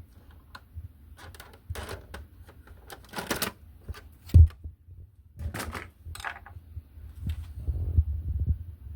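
Irregular plastic clicks, taps and short scrapes from the casing of an Xbox One X being handled and pried at during disassembly, with one louder low thump about four and a half seconds in.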